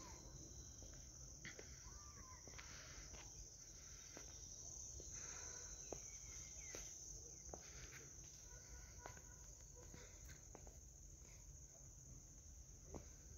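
Crickets trilling in a steady high-pitched chorus, with faint scattered clicks and a couple of brief chirping calls near the start.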